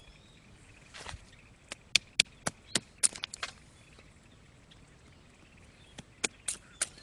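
Wood bonfire crackling, with irregular sharp pops: a run of them from about a second in, a lull, then more near the end.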